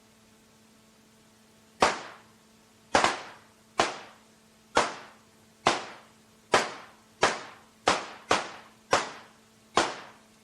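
A series of eleven gunshots, sharp cracks at uneven intervals, each trailing off in a short echo. Faint tape hiss and hum lie underneath.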